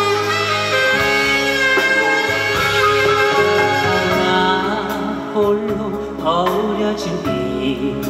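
Live trot song with band accompaniment, sustained melodic instrument lines over guitar and bass, and a male singer's voice with vibrato coming in over the second half.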